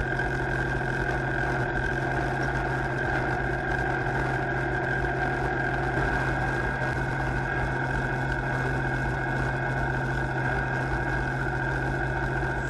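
Kubota compact tractor's diesel engine running at a steady speed while the tractor drives along, heard from the operator's seat.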